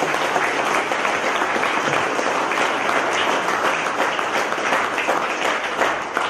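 Audience applauding: dense, steady clapping from a crowd, beginning to die away near the end.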